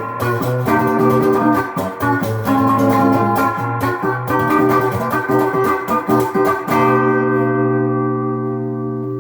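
Gearit Telecaster-style electric guitar playing a run of picked notes and chords, then one chord left to ring out and slowly fade for the last couple of seconds.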